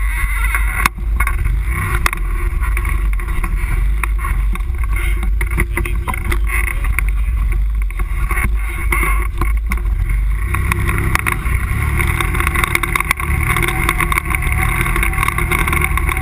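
ATV engine running as the quad rides along a dirt trail, with frequent short knocks and rattles.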